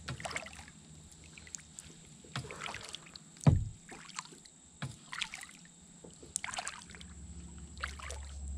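Kayak paddle strokes in calm water: the blade dipping and dripping with light splashes every second or so, and one low thump about three and a half seconds in, likely the paddle knocking the plastic hull.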